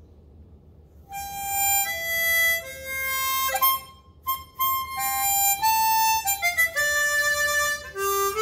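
Chromatic harmonica played through a frictionless lucite mouthpiece slider that the lips rest on, one hole at a time. It plays a short melody of single clear notes starting about a second in, with a few brief breaks and one note sliding up in pitch near the middle.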